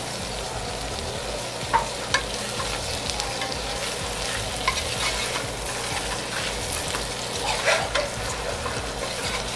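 Chicken, chorizo and sliced kielbasa frying in a metal pot while a wooden spoon stirs them: a steady sizzle with a few brief knocks and scrapes of the spoon against the pot.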